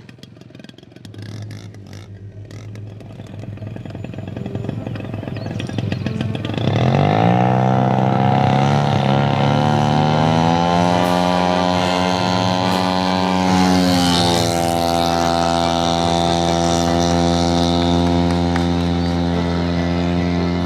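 Petrol engine of a 4-metre radio-controlled Cessna model aircraft: quiet at first, then about six seconds in the throttle opens and the engine note rises steeply as it runs up to full power for the takeoff run. It holds a steady high drone, dipping slightly in pitch about two-thirds through as the plane goes by and climbs away.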